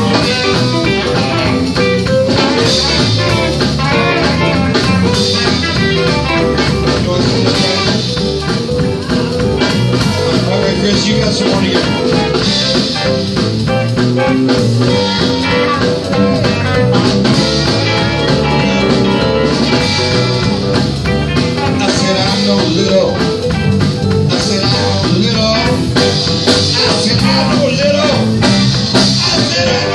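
Live blues band playing: electric guitar over electric bass and drum kit, with keyboard.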